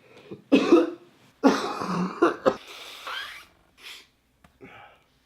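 A man sick with a cold coughing and clearing his throat in several short fits, with rough breaths between them.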